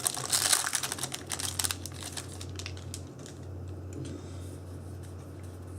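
Yu-Gi-Oh! trading cards and their foil booster-pack wrappers being handled: a quick run of light clicks and crinkles for about the first two seconds, then fainter handling over a steady low hum.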